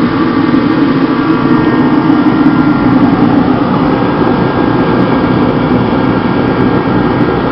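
Heatstar 125,000 BTU kerosene forced-air torpedo heater running just after lighting: a steady, loud rush of the burning fuel and the blower fan, with a few steady hum tones in it.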